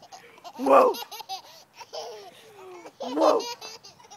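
Young child laughing: two loud bursts of laughter about two and a half seconds apart, with shorter rhythmic giggles between them.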